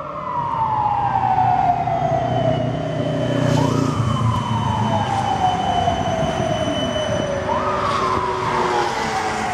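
Siemens Combino NF12B tram's traction drive whining as the tram slows: three long falling sweeps in pitch, each jumping back up and falling again, over a low rumble of wheels on rails.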